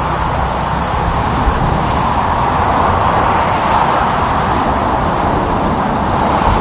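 Road traffic going by: steady tyre noise on the pavement with the low engine rumble of passing vehicles, the rumble fading in the middle and building again near the end.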